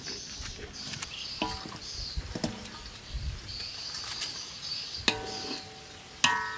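Wooden spatula knocking against a large steel wok while stirring spaghetti into tomato sauce. The metal rings briefly after each knock, about four in all, the loudest near the end.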